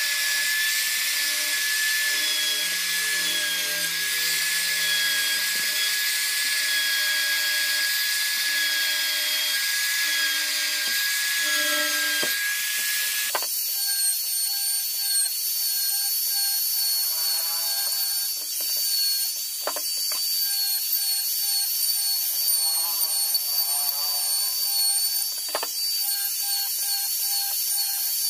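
Handheld trim router running steadily with a high whine as it cuts shallow grooves into a softwood pallet-board top. About halfway through, the whine jumps to a noticeably higher pitch.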